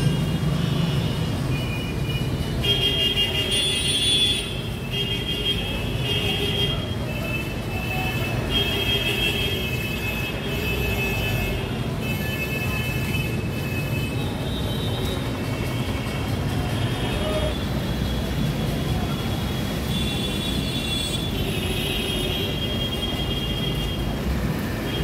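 Road traffic: engines running with a steady rumble, and vehicle horns tooting again and again in short blasts.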